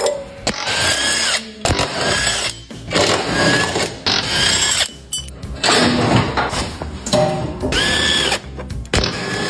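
Handheld power tool running in about seven short bursts of roughly a second each, each with a whine that rises and falls as it spins up and slows.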